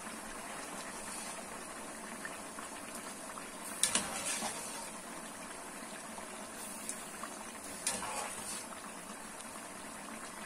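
Large aluminium pot of eggplant cubes at a rolling boil in salted vinegar brine, bubbling steadily. A wire skimmer clinks briefly against the pot about four and again about eight seconds in.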